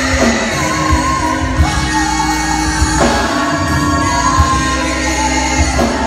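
Live gospel singing: a woman's lead vocal holding long notes, with backing singers, over Hammond B3 organ and a steady low beat.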